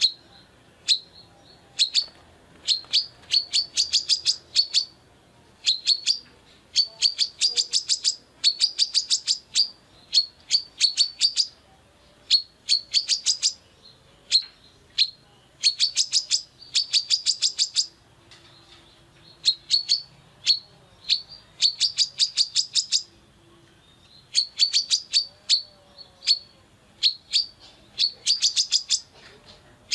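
Female brown-throated sunbird (kolibri kelapa) singing hard: rapid trains of sharp, high chirps, each burst about a second long, repeated after short pauses.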